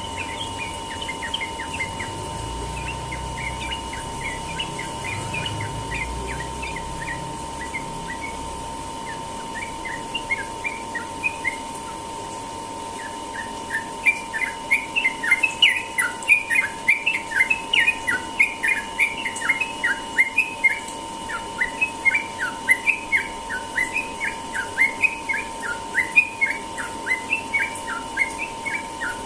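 Yellow-vented bulbul (trucukan) singing its rapid 'ropel' song, a fast run of short chirpy notes. The song is sparse and softer at first, then turns dense and louder about halfway through. A faint steady tone runs underneath.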